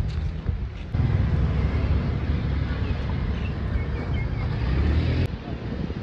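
Outdoor street ambience: low rumble of wind on the microphone mixed with road traffic. It swells about a second in and drops abruptly about five seconds in.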